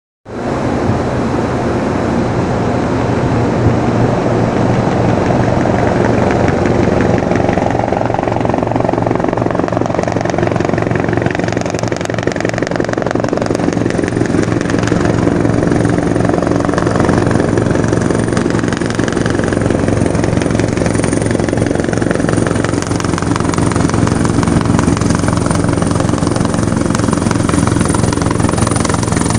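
Helicopter approaching to land: rotor beating and a high turbine whine growing louder over the second half, on top of a steady low hum and rumble.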